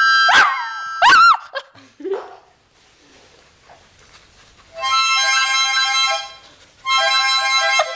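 Dog howling along to a harmonica: three short howls that slide in pitch in the first two seconds or so, then the harmonica plays two held chords, about five seconds in and again near the end.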